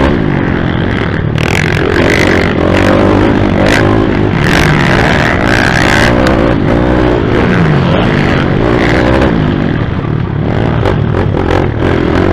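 Pit bike's single-cylinder four-stroke engine at race pace, heard from the rider's helmet: revs rising and falling with the throttle and gear changes. Short gusts of wind noise hit the microphone.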